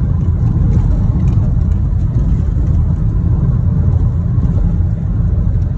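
A car driving, heard from inside the cabin: a steady low rumble of engine and tyres on a worn, patched asphalt road.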